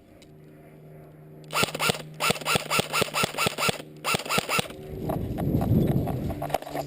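Airsoft electric gun firing a rapid string of shots, about six a second, each a short motor whir with a snap: about two seconds of shots, a brief pause, then a few more. A low rumble follows near the end.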